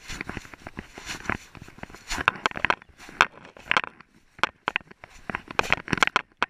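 Irregular scraping, rustling and knocking of a GoPro camera strapped to a moving dog: the housing and mount rub and knock against the dog's coat and harness as it walks.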